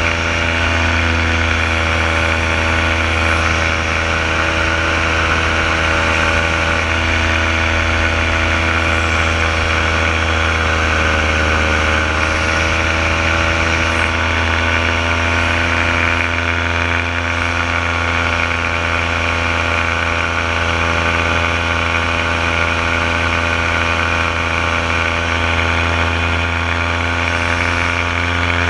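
Renegade paramotor's engine and propeller running steadily in flight, a constant droning note whose pitch dips slightly about halfway through and then comes back up.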